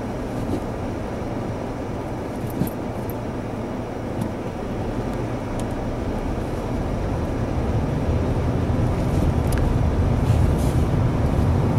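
Car engine and road noise heard from inside the cabin as the car moves off slowly, growing louder over the last few seconds as it picks up speed, with a few faint clicks.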